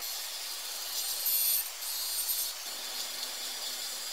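Bench grinder wire wheel brushing small sandblasted steel parts, buffing the matte rust-free metal to a shine before zinc plating. A steady scratchy hiss, louder for about a second and a half starting about a second in.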